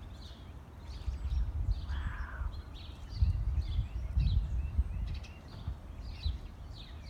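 Many small birds chirping, short high calls several times a second, with one fuller call about two seconds in, over a low rumbling noise that swells a few times.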